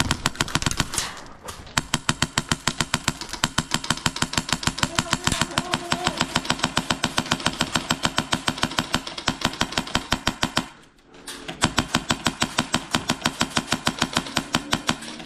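Airsoft electric gun firing on full auto: a rapid, even stream of shots with the gearbox whirring under it, in long sustained bursts with one short break about eleven seconds in.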